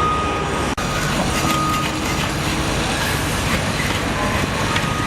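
Heavy vehicle running, with a reversing alarm beeping a few times over steady machinery and traffic noise.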